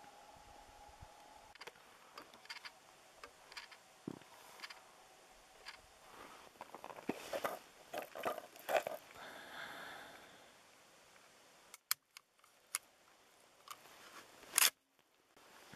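Handling of rifle ammunition: a cartridge rattles as it is pulled from a plastic cartridge box, then a bolt-action rifle is loaded with sharp metallic clicks, the loudest near the end as the bolt is closed on the round.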